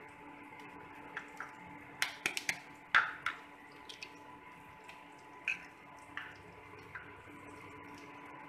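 Eggs being tapped against a stainless steel bowl and broken open by hand: a cluster of sharp clicks and taps about two to three seconds in, the loudest near three seconds, then a few lighter clicks, over a faint steady hum.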